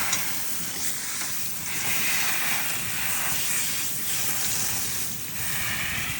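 Shower spray running, a steady watery hiss that swells and fades every second or two, wetting down a pet parrot.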